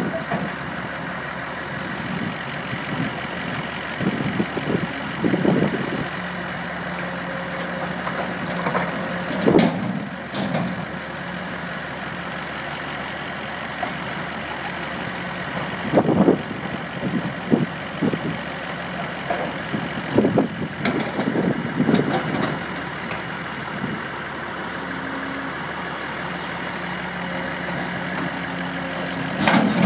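Diesel engines of a hydraulic excavator and an idling truck running steadily. Every several seconds there are louder rumbling bursts as the excavator works under load and drops buckets of dirt into the truck's steel container.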